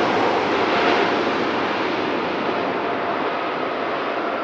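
Four GEnx turbofan engines of a Boeing 747-8F freighter at takeoff power on the takeoff roll: a steady rushing jet roar with a faint whine, slowly fading as the aircraft pulls away.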